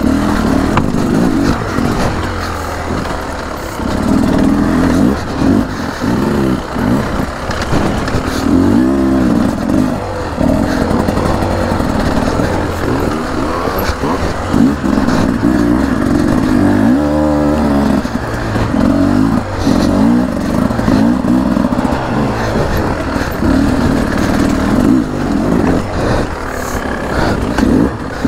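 2023 Beta RR300 Racing's 300 cc two-stroke single-cylinder engine being ridden hard over an enduro trail. The throttle is repeatedly opened and chopped, so the engine note keeps rising and falling in pitch, with the clearest rev sweeps about nine and seventeen seconds in.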